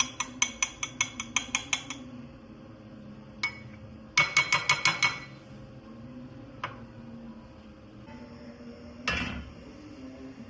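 A utensil clinking rapidly against a ringing dish, about seven strikes a second, in two short runs with a couple of single clinks between them, then a brief clatter near the end, over a faint steady hum.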